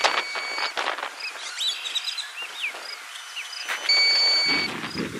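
A bird singing a short warbled phrase in the middle. A steady high electronic beep sounds at the start and again near the end.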